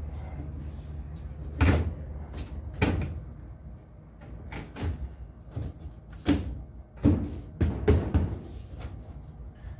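About eight sharp knocks and clunks at uneven intervals, with a low steady hum under the first second and a half.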